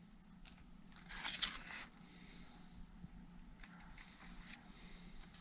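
Large paper plan sheets rustling and scraping briefly as they are handled, about a second in, then faint room tone with a low steady hum.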